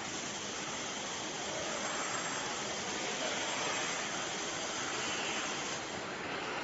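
Wet wipes production machinery running: a steady, even mechanical hiss and whir with no distinct rhythm.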